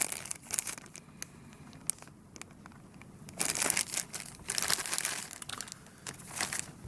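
Kit packaging crinkling and rustling as it is handled, in irregular bursts that are loudest around the middle.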